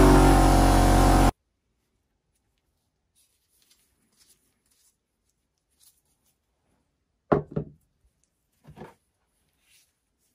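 Bench grinder motor running steadily with a brass pump fitting held to its wheel, cutting off abruptly about a second in. Then a few sharp knocks about seven seconds in and softer ones about nine seconds in, as the pump's metal parts are handled.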